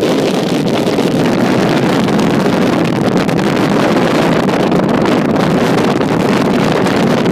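Steady rush of wind buffeting the microphone from a car travelling at highway speed, mixed with road noise.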